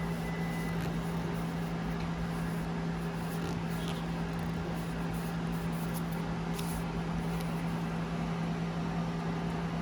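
Ricoh C840DN colour laser printer running with a steady hum and a few faint, irregular ticks. The ticking comes from the fuser output area and began after the fuser's thermopile sensor was cleaned and the unit reassembled.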